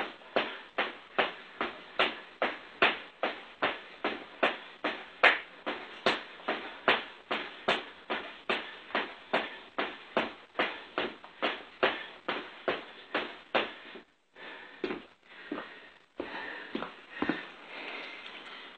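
Rhythmic landings of a person doing jumping jacks, about two and a half impacts a second, which stop about fourteen seconds in, followed by a few irregular softer sounds.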